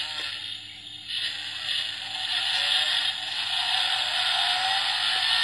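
A toy Mustang GT's built-in sound module playing a recorded car engine running and revving through its small speaker, with its light-up feature on. The sound dips briefly about a second in, then rises slightly in pitch through the second half.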